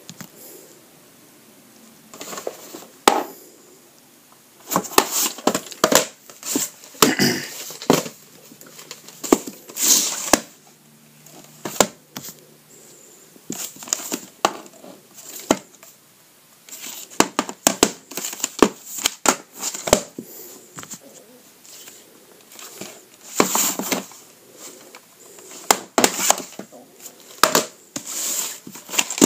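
Plastic VHS clamshell cases being picked up, turned over and set down on a wooden floor: irregular clacks and knocks with rustling scrapes in between.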